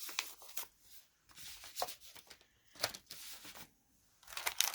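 Paper envelopes and cards rustling and crinkling as they are handled, in several short rustles with the loudest near the end.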